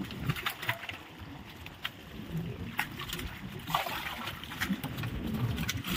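Water splashing and sloshing, with many short, sharp splashes over a low rumble.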